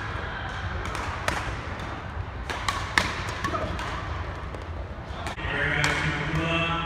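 Badminton rally: several sharp cracks of racket strings hitting the shuttlecock, a second or two apart, over the hum of voices in the hall.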